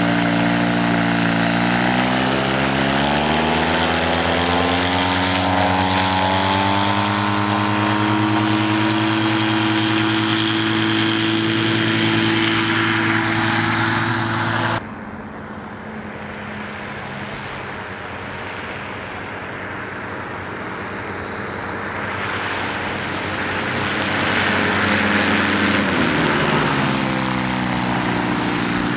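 Skycycle weight-shift ultralight trike's engine and pusher propeller revving up over the first few seconds, then holding a steady high-pitched drone at full power. Midway it cuts off suddenly to a quieter, more distant engine sound that slowly grows louder. Near the end the trike passes close by and the pitch drops as it goes past.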